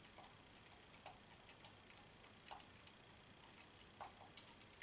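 Faint, irregular little clicks of a precision T5 Torx screwdriver turning a tiny screw out of an Arlo Essential camera's plastic housing, a couple of clicks a second, with a quick cluster near the end.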